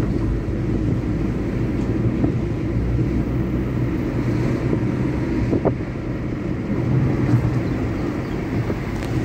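Steady road and engine noise heard from inside a car's cabin while it drives along a highway at speed: an even, low drone.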